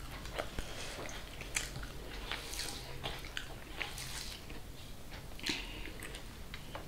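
Eating by hand: fingers squishing and mixing soft rice on a metal plate, with wet chewing and lip smacks as short irregular clicks several times a second.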